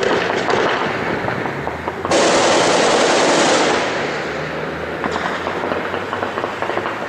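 Heavy automatic gunfire, many rapid shots crackling densely together from several guns across the city. A louder, denser burst starts about two seconds in and eases off near four seconds, and the shooting carries on after it.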